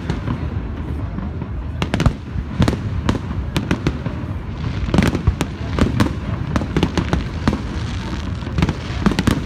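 Fireworks bursting: an irregular run of sharp bangs and crackling pops, two or three a second, the loudest about two and five seconds in.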